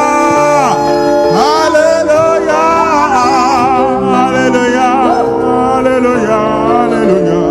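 Gospel praise music: a solo voice sings long, wavering notes and runs over steady held keyboard chords.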